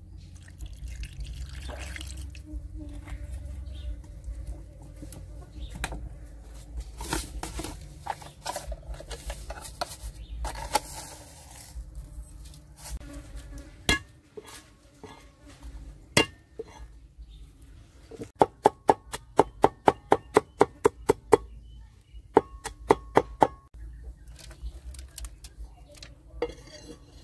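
Cleaver chopping on a wooden chopping board, mincing garlic: a fast run of sharp knocks, about six a second, for a few seconds past the middle, then a shorter burst. Before it, scattered clicks and handling knocks.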